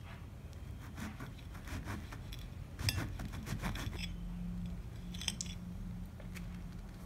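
Serrated table knife sawing through a soft cat-paw-shaped pastry, with the knife and fork scraping and clicking against a ceramic plate. There is a sharper clink about three seconds in and another about five seconds in.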